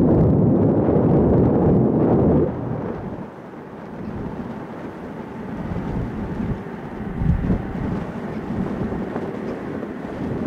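Loud low jet-engine rumble that cuts off abruptly about two seconds in, followed by the quieter, steady engine noise of an Airbus A330 MRTT's Rolls-Royce Trent 700 turbofans as it taxis.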